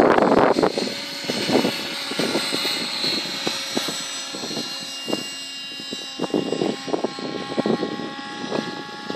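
A 700-size radio-controlled helicopter in flight: a steady whine from its motor and rotor over a rough, uneven rush of noise.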